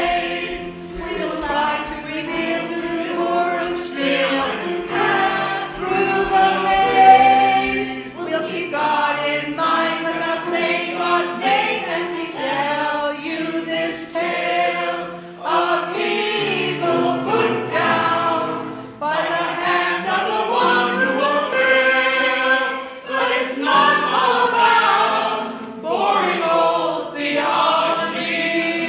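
A group of voices singing a song together as a choir.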